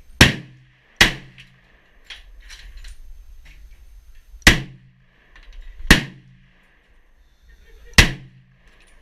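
Five gunshots at uneven intervals, the first two about a second apart, then three more a second and a half to two seconds apart.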